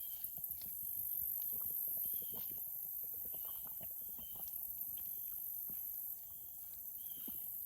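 A high, continuous insect chorus, with short repeated chirps and scattered soft clicks and taps.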